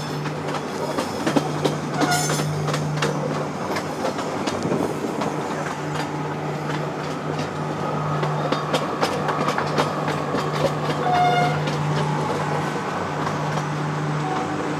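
Passenger train running on the rails: a steady rumble with a constant low hum, and irregular clicks and knocks from the wheels passing over rail joints.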